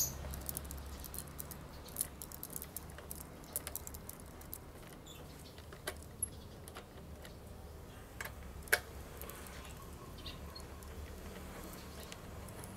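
Scattered small clicks and taps of screws being hand-unscrewed and the plastic tank fairing panel of a Husqvarna Svartpilen 401 being worked loose, with one sharper click a little under nine seconds in. A low steady hum runs underneath.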